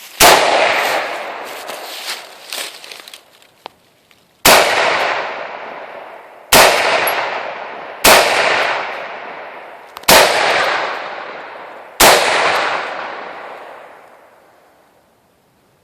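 AR-15 rifle fired six times in deliberate single shots, one to four seconds apart, each report followed by a long decaying echo.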